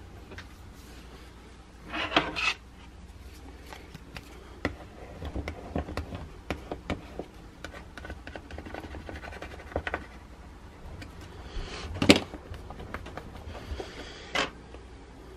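Hands rubbing and pressing a vinyl decal and its transfer sheet onto a hockey skate boot: rubbing and scraping with scattered clicks, and louder bursts about two seconds in and again near the end.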